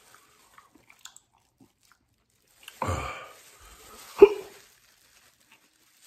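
A man biting into a buffalo wing: a short noisy sound near three seconds in, then one sharp bite a little past four seconds in, the loudest sound, with a brief tail of chewing.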